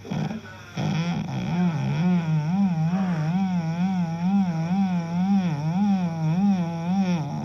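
A person's odd snore: one long, unbroken droning tone that wobbles up and down in pitch about twice a second, starting just under a second in.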